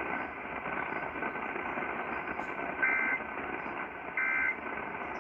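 Weather-radio static hiss, with two short bursts of EAS/SAME digital data tones about a second and a quarter apart in the second half, each a brief two-pitch screech. Bursts this short, straight after the warning's closing repeat, are the end-of-message code that signs off the alert.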